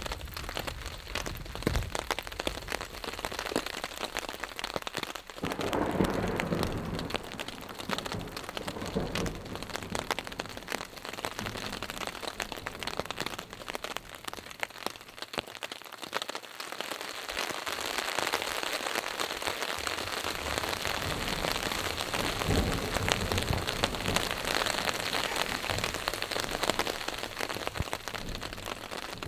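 Steady rain falling on a tarp shelter and the surrounding forest: a dense patter of drops that swells louder about six seconds in and again in the second half.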